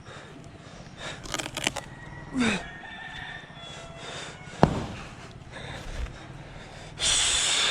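A rooster crowing, with a few knocks and one sharp crack about four and a half seconds in, and a loud rush of noise starting near the end.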